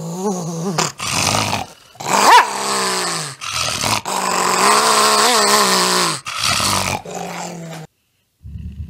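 A small dog growling and snarling in long bouts that rise and fall in pitch, broken by short pauses. Near the end, after a brief silence, a golden retriever growls low over a bone.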